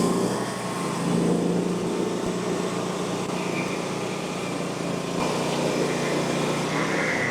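Frontier OS35 hydraulic bandsaw sawmill running steadily, its engine and spinning band blade making a continuous mechanical drone.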